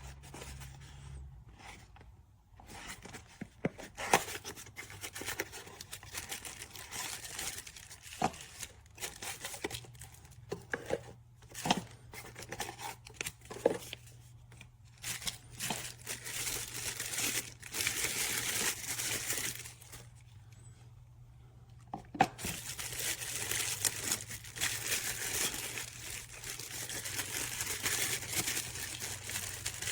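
Product packaging being torn and crinkled open, with dense rustling and tearing and several sharp clicks and knocks. The rustling drops away briefly about two-thirds of the way through.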